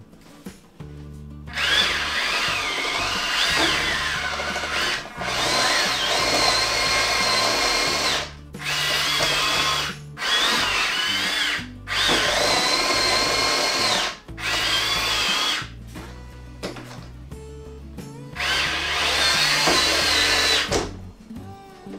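Twin electric drive motors and gearboxes of a WPL E1 1/16 RC tracked vehicle whining in about seven bursts of one to three seconds as it is driven at a step of books. The pitch wavers up and down with the throttle, while the stiff, slippery tracks lack grip for the climb. Background music underneath.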